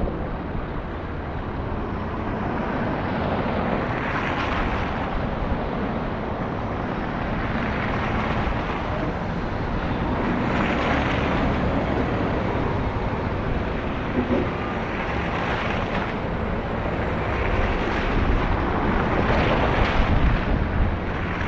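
Steady street-traffic rumble on a snow-covered road, with a car swelling past every few seconds, tyres hissing through the snow.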